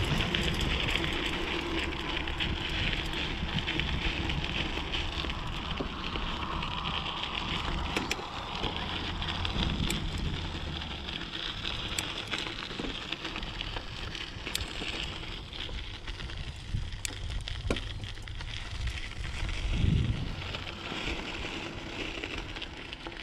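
Mountain bike rolling over a dirt and gravel trail: tyres crunching on the gravel with scattered clicks and rattles, and wind rumbling on the microphone, strongest in the first half.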